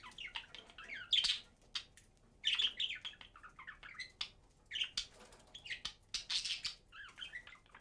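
Budgerigar chattering and warbling in a string of quick bursts of high chirps and clicks, with short gaps between them.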